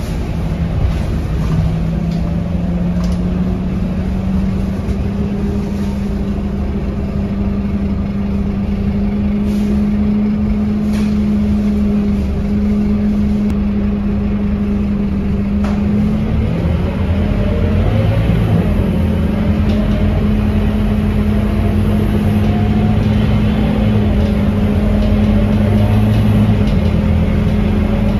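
A Scania K230UB bus's five-cylinder diesel engine running under way. Its note rises in the first few seconds and holds steady, then dips and climbs again a little past halfway.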